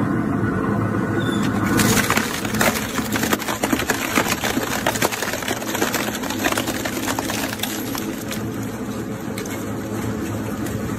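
Double-shaft shredder running, its slow twin rotors of hooked blades cracking and crunching a black ribbed plastic tube over a steady motor hum. The cracking starts thick about two seconds in and grows sparser toward the end.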